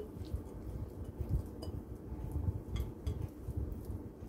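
Raw ground turkey and chicken meatloaf mixture being scraped by hand from a glass mixing bowl into a glass baking dish: soft, irregular low thuds of the mixture dropping, with a few light clicks of glass and jewellery against glass.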